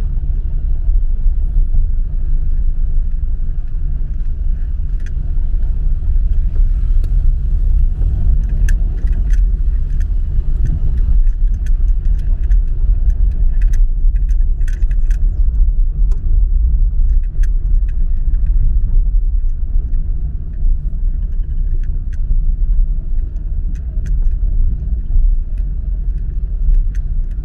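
Car driving slowly on a city street: a steady low rumble of road and engine noise, with scattered light clicks and rattles.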